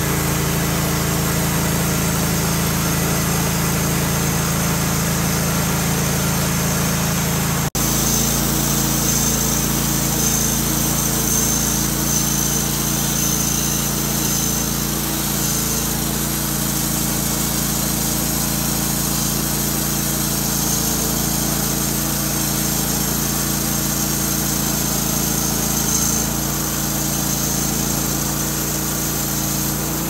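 Wood-Mizer LT15 portable band sawmill running steadily, its engine driving the band blade as the saw head is pushed through a pine log. The sound changes abruptly about eight seconds in.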